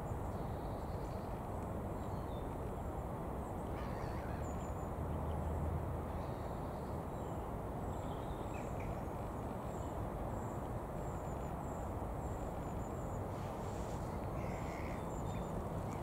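A steady low rumble with faint, scattered gull calls over it, a few at a time.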